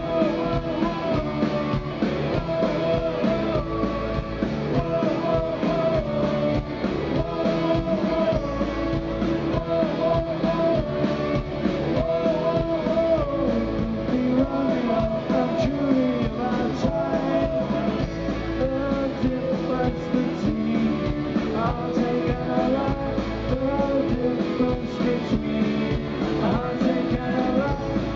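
Live rock band playing through a stage PA: electric guitars with a man singing lead.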